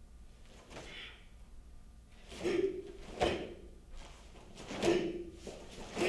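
Sharp snaps and thuds of a karate kata being performed on a foam mat, one with each technique: the karate uniform snapping and bare feet landing, four strong hits spaced about a second or more apart.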